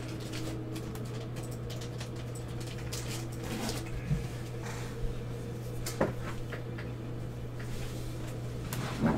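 A steady low hum with a few short, sharp clicks and knocks of small handling, the loudest about four and six seconds in and a cluster near the end.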